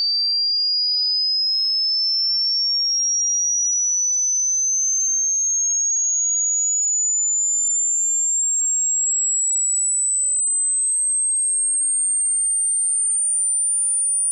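A single pure, high-pitched electronic test tone climbing slowly and evenly higher in pitch at a steady loudness: a hearing-test frequency sweep for finding the highest pitch the listener can still hear.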